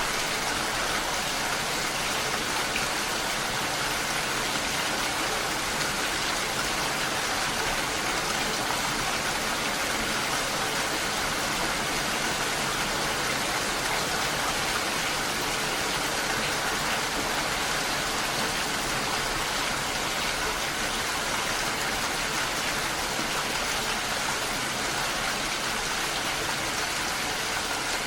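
Steady rain falling, an even hiss of many drops with no change in strength.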